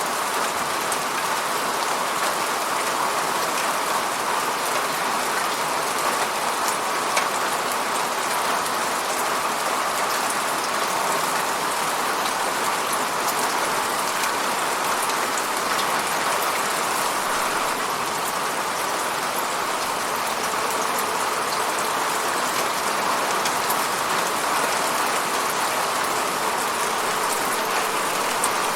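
Steady rain falling, a dense even patter of drops with many small ticks of individual drops hitting a surface.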